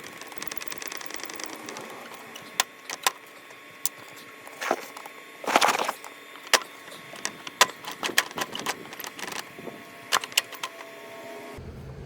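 Electric welding arc on lawn mower steering parts, crackling and popping in irregular sharp snaps, with a louder burst of sputter about halfway. A steady low hum starts near the end.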